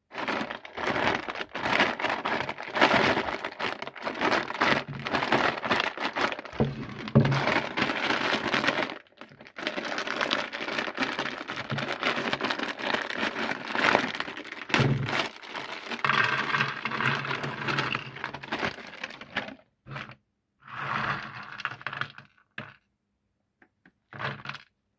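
Crunchy Kurkure corn puffs being crushed in a meat grinder: dense cracking and crunching, breaking off briefly about nine and twenty seconds in, then thinning to a few last cracks near the end.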